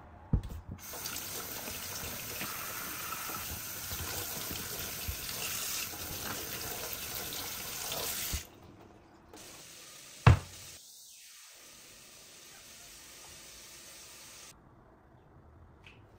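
Kitchen tap running over a zucchini held in the stream, the water splashing into a stainless steel sink; the water stops about eight seconds in. About two seconds later comes a single sharp knock, the loudest sound of all.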